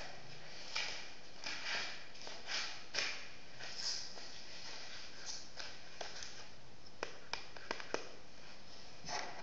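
A cardboard model rifle being handled: short rustles and scrapes of cardboard as it is turned and its folding stock moved, then four light clicks in quick succession from its parts, over a steady hiss.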